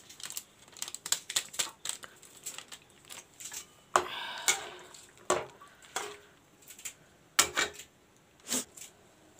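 Flat metal spatula stirring pasta in sauce in a metal kadai, clinking and scraping against the pan with irregular taps and short scrapes, a few of them louder.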